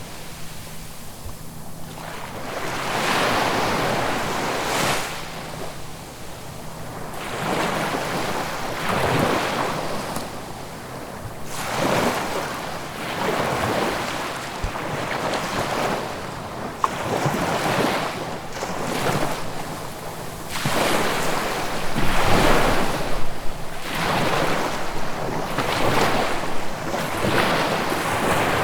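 Sea waves breaking and washing onto the shore, surging in one after another about every two seconds.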